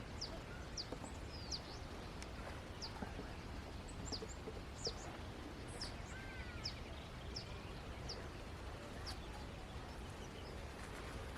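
Birds chirping: short, high, downward-sweeping chirps repeated about once or twice a second, with a few fainter lower whistles, over a steady low background rumble.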